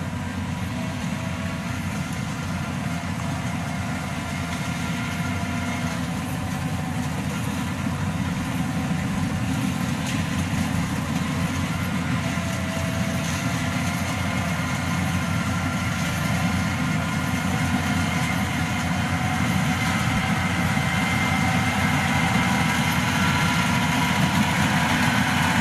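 Yanmar AW82 combine harvester's 82-horsepower diesel engine and threshing drum running steadily under load while it cuts rice, a dense low rumble with a steady whine on top. It grows louder toward the end as the machine draws nearer.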